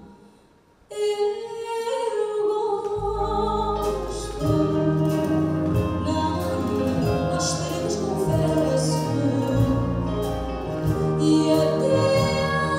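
Live concert music: a woman sings into a microphone over a small acoustic band of guitars and percussion. The music cuts in about a second in after a moment of near silence, and a bass line and fuller backing come in a couple of seconds later.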